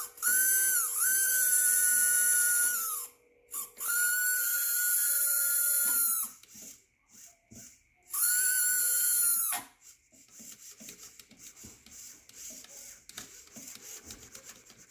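Small electric RC motor run through a submerged, Plasti Dip–coated ESC, whining in three throttle bursts. Each whine rises in pitch as the motor spins up and falls as it winds down. The motor keeps running with the ESC under water, so the waterproofing is holding. Faint irregular ticking follows in the last few seconds.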